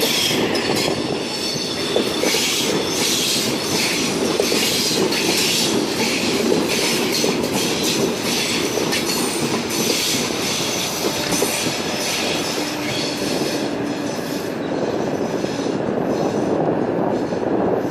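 Oscar (H-set) electric multiple unit passing through the station, a steady loud run of wheel and rail noise with thin high squealing tones over it and repeated clicks from the wheels over rail joints.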